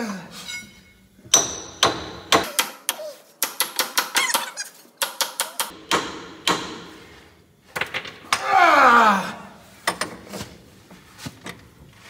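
Hand tools knocking and clicking on the steel drive-shaft yoke under a semi truck: scattered sharp metal knocks with a quick run of taps in the middle. Near the end, a man's voice glides down in pitch for about a second.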